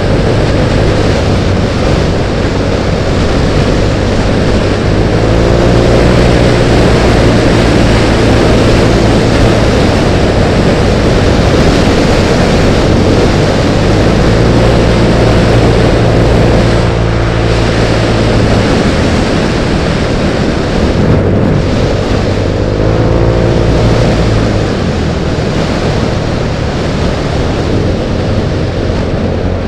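Motor scooter engine running at road speed under heavy wind rush on a helmet-mounted microphone. The engine note rises and falls a few times as the throttle changes.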